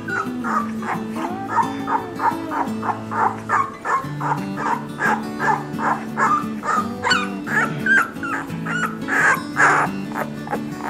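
Background music with held low notes, over newborn Cane Corso puppies making short, high-pitched squeaks and whimpers. Two louder squeals come near the end.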